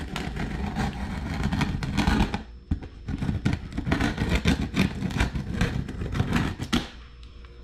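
Box-cutter knife slitting packing tape along a cardboard box seam: a rapid scratchy crackle of the blade tearing through tape and cardboard. It comes in two long strokes with a short break about two and a half seconds in, and it stops shortly before the end.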